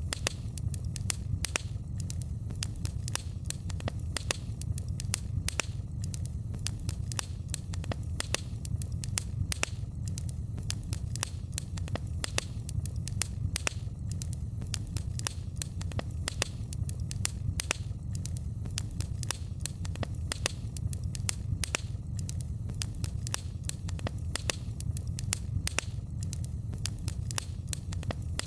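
Fire crackling in a fireplace: frequent, irregular sharp pops and snaps over a steady low rumble.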